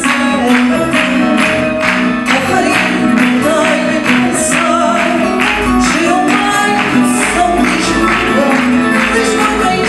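Fado sung live by a woman, accompanied by Portuguese guitar and guitars: plucked strings in a steady rhythm under long, held vocal notes.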